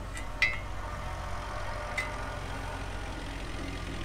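An engine idling steadily with a low, even hum. A sharp click about half a second in and a lighter one about two seconds in come from small parts being handled.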